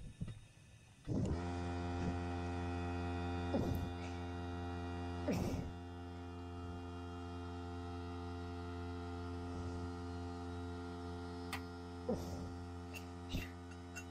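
A steady electric machine hum with a row of pitched tones switches on abruptly about a second in and keeps running. A few light metallic clicks and knocks from tools on the valve train sound over it, the loudest about five seconds in.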